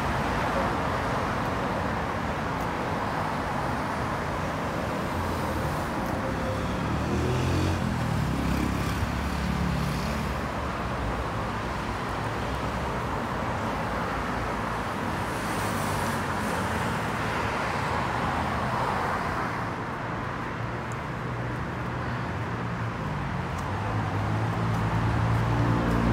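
Steady road traffic noise of a city street, growing louder near the end.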